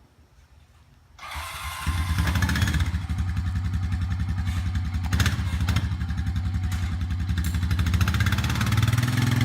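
An ATV engine comes in about two seconds in, just after a rush of outdoor noise, and runs steadily at an even pitch, getting a little louder near the end.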